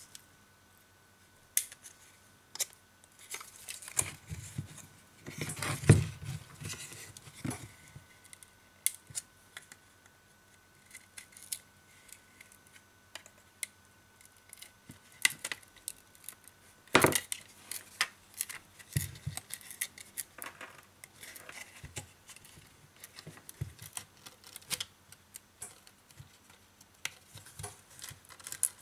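Thin metal blade tool scraping and clicking against a smartphone's plastic frame as the display module is pried free, its adhesive softened by heating. Scattered short clicks and scrapes, with a louder knock about six seconds in and another around seventeen seconds.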